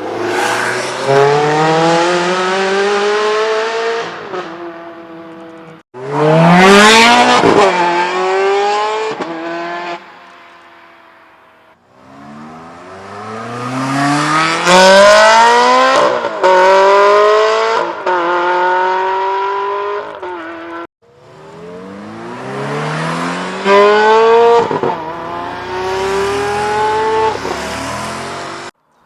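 Ferrari V8 sports car accelerating hard at full throttle, revs climbing and dropping back at each quick upshift. Four separate runs, each cut off abruptly.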